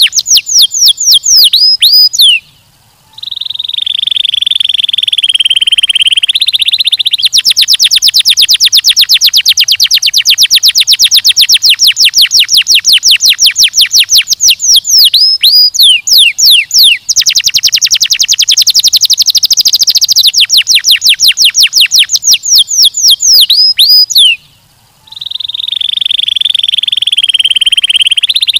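Domestic canary singing a long song of fast trills: rapid runs of sharp repeated notes, some falling swept notes, and a held lower rolling note of about three seconds, which comes twice after a brief pause.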